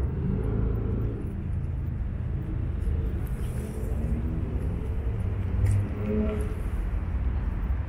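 Outdoor street ambience: a steady low rumble with a few faint clicks.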